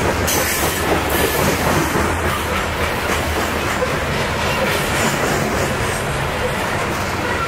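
Covered hopper cars of a CSX freight grain train rolling steadily past at close range. The steel wheels clatter over the rail with a continuous rumble.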